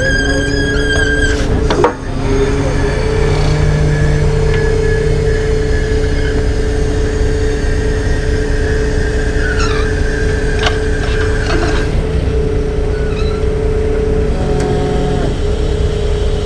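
Heavy truck engine running steadily with a constant hum. A sharp knock comes about two seconds in.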